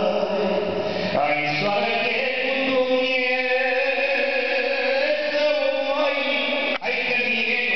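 A man singing into a handheld microphone over a PA, holding long, sustained notes. The sound briefly cuts out about seven seconds in.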